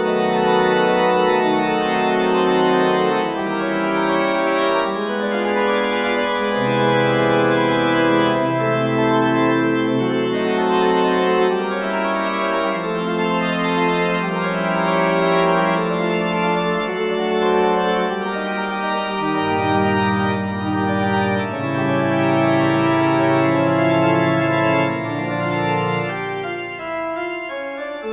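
Background music of slow, sustained chords that change every second or two over a shifting bass line.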